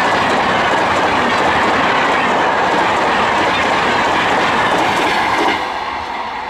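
Coaches of an express passenger train rushing past at full speed, wheels clattering over the rail joints in a steady loud rush. The sound drops off about five and a half seconds in as the train passes.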